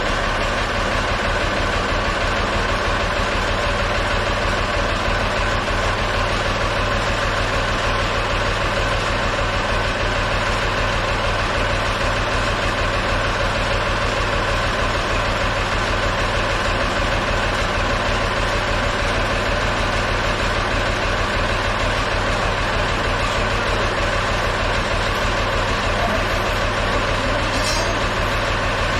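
Ford 4500 backhoe's engine running steadily at an even speed, with no rise or fall in revs.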